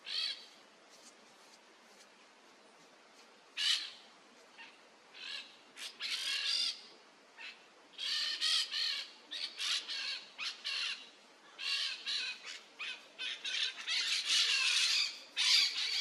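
Peach-fronted parakeets squawking: scattered single calls at first, then calls coming thick and fast from about halfway, busiest near the end.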